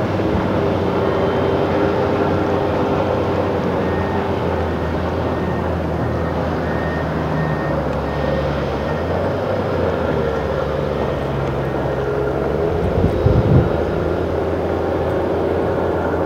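Heavy diesel quarry machinery running steadily, a continuous low engine note with several held tones. Late on, a short cluster of low thumps.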